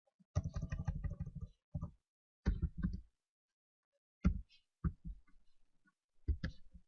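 Computer keyboard typing: quick runs of keystroke clicks in short bursts with pauses between them, the first run the longest.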